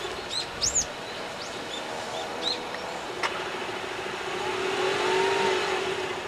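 Exhaust of a Honda Insight ZE2 hybrid through an HKS LEGAMAX Premium stainless muffler, idling steadily with one brief, light rev that rises and falls about five seconds in.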